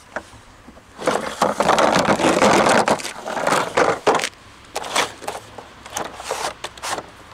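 Red plastic ground tubes of a firework rocket stand being pulled out of a cardboard box: a few seconds of continuous scraping and rustling of plastic against cardboard, then several short scrapes and knocks.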